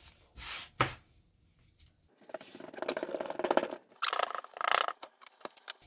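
Hands in disposable plastic gloves working a piece of flour-water-salt bread dough on a floured countertop. There is a light tap about a second in, then two spells of crackly rustling and rubbing from the gloves and dough.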